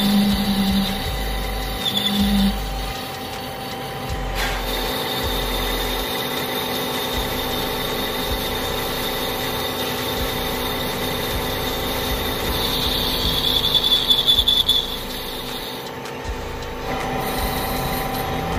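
Metal lathe running while a boring bar cuts inside a spinning steel bushing, with a steady high whine from the cut. The whine grows louder for about two seconds near the end.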